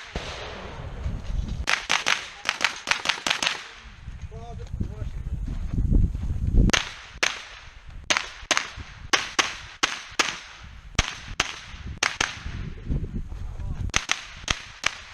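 Rifle shots fired in quick strings of two to five, with pauses of a second or two between strings, during a timed stage of a shooting match.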